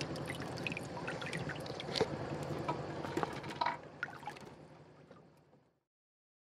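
Sea water lapping and splashing, with small trickling drips, fading out about five seconds in.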